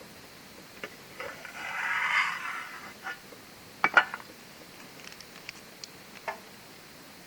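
Camp cookware being handled: a scraping rush about two seconds in, then two sharp metal-on-metal knocks, the loudest sounds, followed by a few light clicks.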